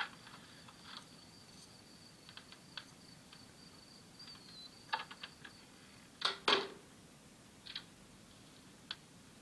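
Door being shut as a man steps into a quiet room: scattered soft clicks, knocks and footsteps, with two louder knocks a little past six seconds as the door closes. A faint high whine stops about halfway through.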